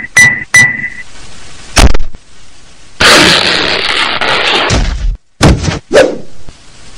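Cartoon sound effects: two short whistled notes, a sharp hit about two seconds in, then a loud noisy crash lasting nearly two seconds, followed by a few more quick hits.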